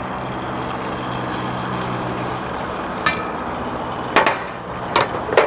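Gas burner of a Trangia 25 stove running with a steady hiss and low hum while food fries in the pan, with several sharp metal clinks against the pot in the second half.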